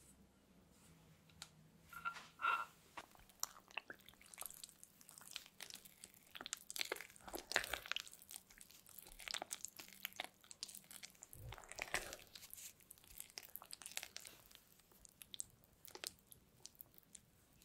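Spatula stirring melted butter into chocolate cake batter in a glass mixing bowl: irregular wet squelching and scraping strokes, a few louder ones about two seconds in.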